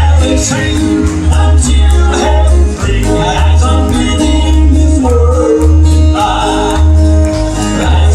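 A gospel band playing an upbeat, country-style song, with a pulsing bass line, steady rhythmic strokes and sung voices.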